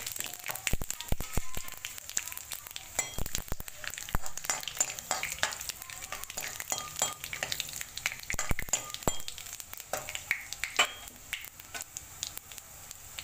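Fenugreek and fennel seeds sizzling in hot mustard oil in a metal kadhai, with many small sharp pops and crackles as they fry. A metal ladle stirs them around the pan.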